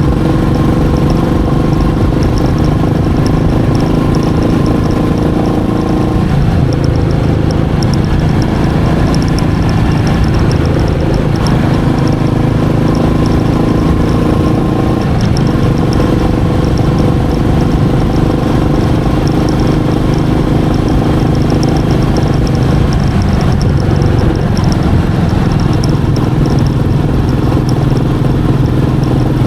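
Royal Enfield Meteor 350's single-cylinder engine running steadily under way, its note shifting in pitch several times.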